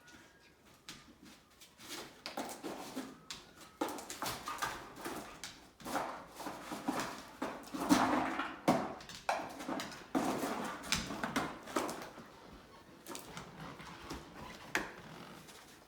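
Dog rummaging and chewing at a cardboard puzzle box for treats: a dense run of rustles, crunches and sharp clicks, busiest around the middle and thinning out near the end.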